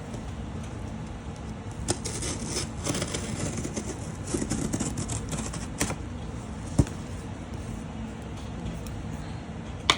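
Rustling and scraping of a large cardboard box being handled and opened, with scattered clicks and one sharp knock about seven seconds in, over a steady background noise.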